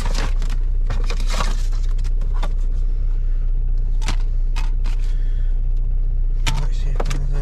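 Rummaging through a car's glovebox: CDs and their cases and paper sleeves clicking and rustling as they are handled, a few sharp clicks scattered through. Underneath runs a steady low hum.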